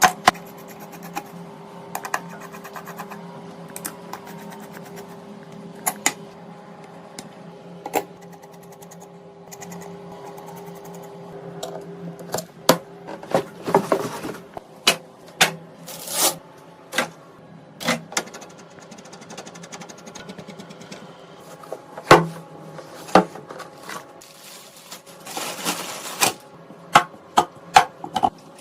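Sharp clicks, taps and short rustles of computer parts being handled and fitted during a PC build, over a steady hum. The clicks come singly early on and grow more frequent in the second half.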